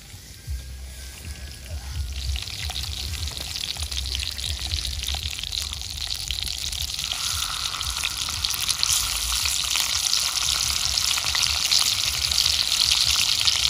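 Whole fish sizzling and crackling on a hot stone slab, the sizzle building steadily louder as they cook.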